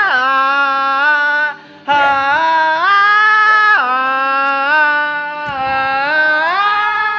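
Karaoke singing of a long 'aah ha ha ha' vocal run: one loud voice holds long notes that slide between pitches, with one short break about one and a half seconds in.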